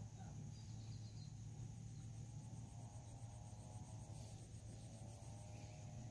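Faint steady trilling of insects, cricket-like, over a low steady hum, with a faint wavering tone joining about two seconds in.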